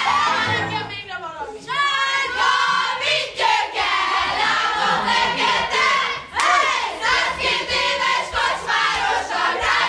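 A group of young voices shouting and chanting together, many voices overlapping.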